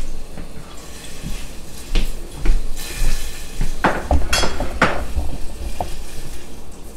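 Metal utensil knocking and clinking against a stainless steel saucepan of noodles in broth: about half a dozen separate knocks, the loudest three close together about four to five seconds in.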